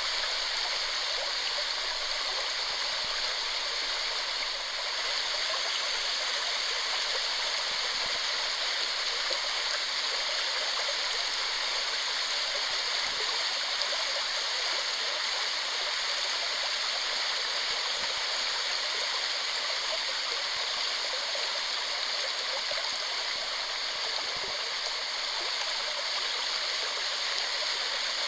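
Waterfall: water falling and rushing in a steady hiss.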